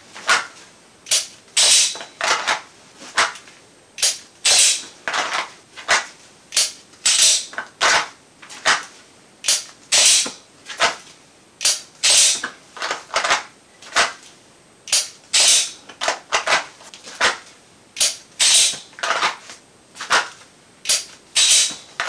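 Handling noise of a red-dot pistol in dry-fire draw practice: sharp clicks and short scrapes as it is drawn from and pushed back into a hard belt holster with gloved hands and the trigger is pulled on an empty gun. The clicks come about one or two a second.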